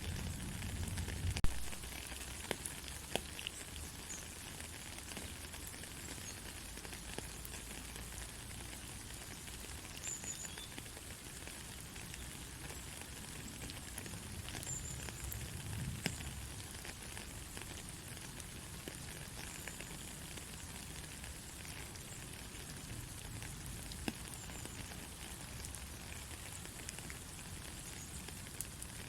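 Soft rain falling steadily: an even hiss with many scattered drop ticks, a few sharper ones, and a low rumble in the first second or two.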